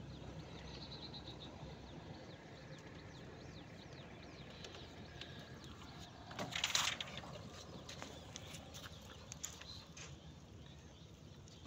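Quiet background with a low steady hum and faint chirping birds. About six and a half seconds in comes a brief rustling scrape, the loudest sound.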